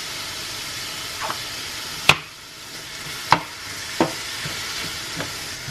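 Ground beef and onions sizzling steadily in a stainless steel sauté pan. From about two seconds in come a few sharp knocks, the first the loudest, as the meat is stirred with a wooden spoon.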